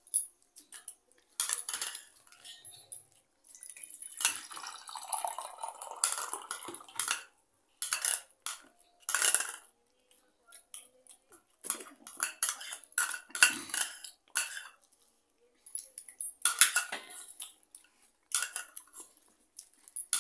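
Spoons clinking and scraping against bowls in irregular clatters, as people eat noodles from them.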